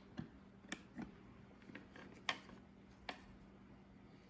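A few faint, scattered clicks and taps of the Shark Multiflex's plastic parts being handled while its collected hair and dust are looked over, over a faint steady hum.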